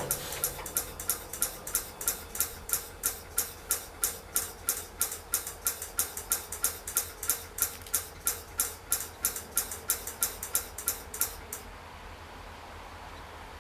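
Railroad bell ringing in quick, even strokes, about three and a half a second, that stop about eleven and a half seconds in.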